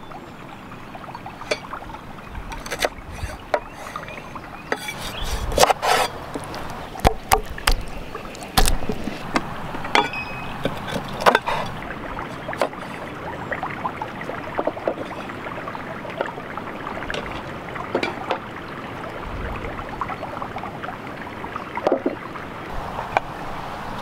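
Cleaver chopping raw chicken wings on a wooden board: irregular sharp chops and knocks, some in quick pairs, over a steady background hiss.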